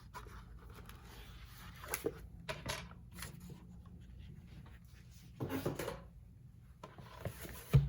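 Paper and a journal being handled on a desk: a few short rustles and scrapes, a longer rustle about five and a half seconds in, and a sharp thump near the end as something is set down.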